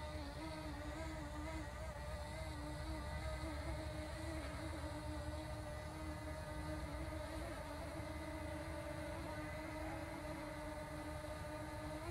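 DJI Mini SE quadcopter's propellers and motors buzzing steadily as the drone is brought down to land, a whining hum whose pitch wavers slightly.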